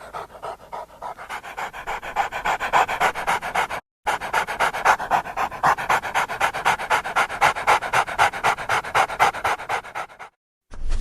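Dog panting rapidly and evenly, about five breaths a second, cut off twice by a brief silence.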